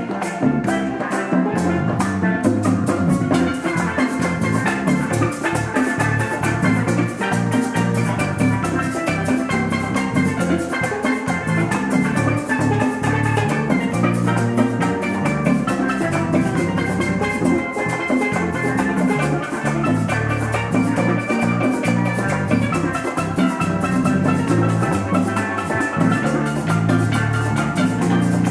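Band music with a drum kit keeping a fast, steady beat under sustained melodic and bass tones.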